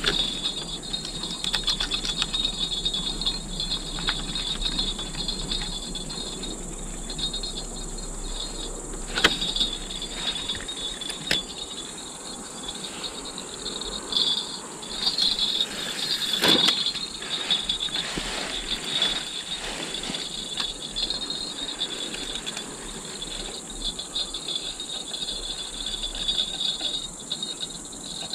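Crickets chirping steadily in a high, flickering trill, with a few sharp clicks and knocks from handling, the loudest about nine and sixteen seconds in.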